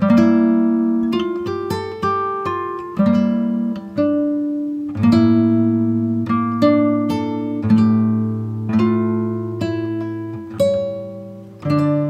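Background music on a plucked string instrument: chords and notes struck about once a second and left to ring and fade.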